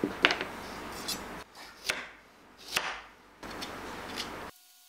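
Hand-held vegetable peeler shaving a chunk of carrot into a rounded pebble shape, a series of short scraping strokes about once a second, with shavings dropping onto a wooden cutting board.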